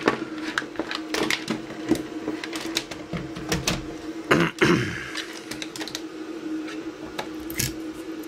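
Scattered clicks and knocks of hands handling tools and a circuit board on a workbench, with a louder clatter about halfway through, over a steady low hum.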